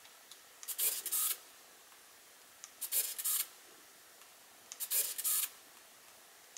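Pentax Espio 120SW compact film camera's internal motor whirring in three short bursts about two seconds apart, each led by a faint click and lasting under a second.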